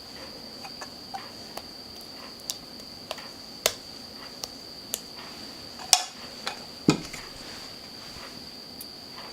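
Scattered light clicks and knocks of kitchenware being handled, the loudest about four, six and seven seconds in, over a steady high-pitched trill like crickets.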